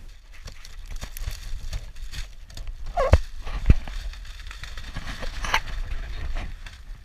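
Thin plastic carrier bag with a catch of small fish crinkling and rustling as it is handled and lifted, in many small irregular crackles with a few louder rustles about three seconds and five and a half seconds in, over a low steady rumble.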